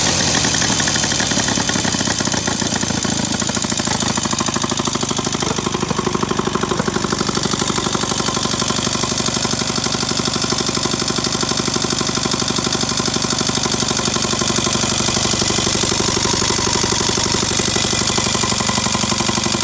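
The engine of a 1913 Douglas 2¾ HP flat-twin motorcycle running with a rapid, even beat.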